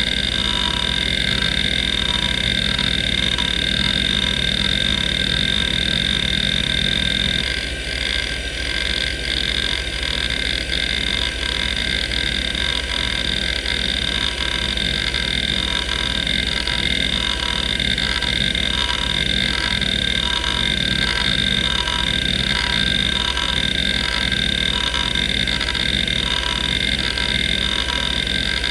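Seagate ST3491A 427 MB hard drive running, its spindle motor whining steadily while the head actuator sweeps back and forth across the platters in rapid, continuous seeks, giving a grinding, rhythmic chatter. The seek pattern, and with it the chatter, changes about seven and a half seconds in.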